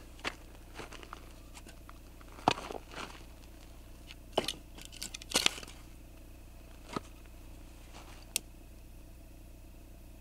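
Split firewood being dropped and set into a stone fire ring: a handful of separate sharp wooden knocks and clatters. Near the end a single short click of a long-necked lighter sparking to light the wood.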